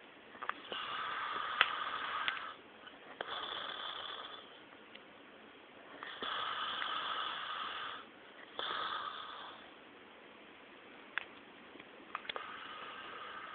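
A person snoring: four rasping snores in the first ten seconds, each lasting one to two seconds with short gaps between, then quieter breathing and a few short clicks.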